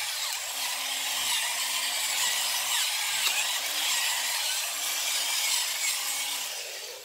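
Pepper mill grinding black pepper over a pan in repeated twists, a gritty rasping that stops abruptly at the end.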